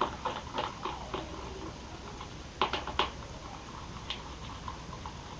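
Glitter glue and slime activator being mixed in a bowl, making irregular small clicks and taps, with two louder ones about two and a half and three seconds in.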